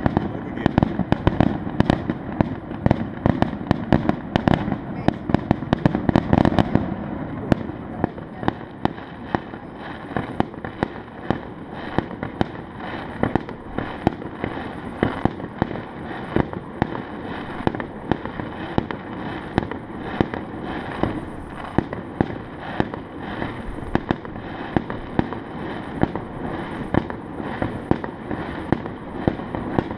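Fireworks going off in rapid succession: a dense stream of sharp cracks and bangs, heaviest and fullest for the first seven seconds or so, then going on as a steady rapid crackle.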